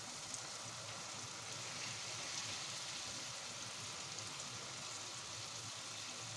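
Chopped onions and minced meat sizzling in hot vegetable oil in a frying pan, a steady even hiss as the raw meat is spooned in.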